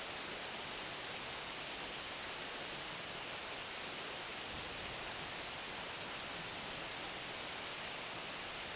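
Steady rain falling, an even dense hiss of drops.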